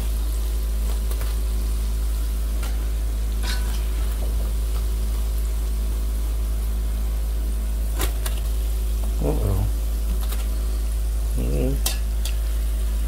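Crescent-roll dough balls deep-frying in hot oil, a steady sizzle, with a few sharp clicks of a wire skimmer against the pot as the batch is lifted out.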